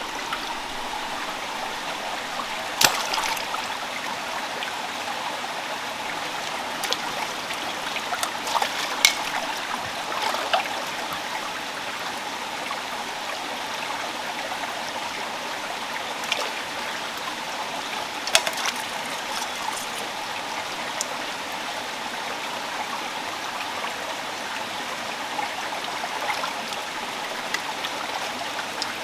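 Shallow stream running over stones, a steady rush of water, with a few short clicks and splashes.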